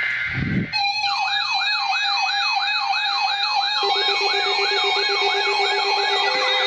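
Several weather alert radios sounding their alarms at once for a severe thunderstorm warning. A fast, repeating siren-like sweep rises and falls over steady alert tones, and another tone joins partway through. A short low thump comes at the very start.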